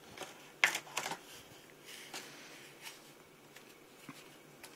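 A clear-plastic spring airsoft pistol being handled: scattered plastic clicks and rustles, the sharpest a little under a second in.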